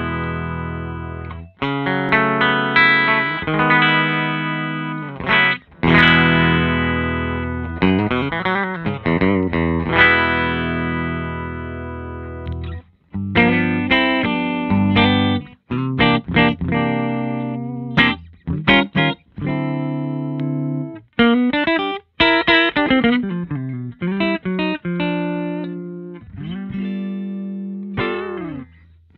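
Gibson Les Paul electric guitar played through a 1973 Fender Bassman Ten Silverface valve amp and a 1x12 cabinet with a Jensen C12K speaker. Blues chords and licks with string bends, notes ringing out between short pauses.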